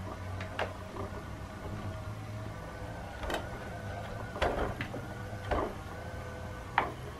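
Battery-powered Leaps and Bounds Thrill and Chase cat toy running: its small motor whirs steadily as it spins feather wands around the base of its plastic dome. Half a dozen short knocks and clicks come through it as a cat paws at the plastic toy.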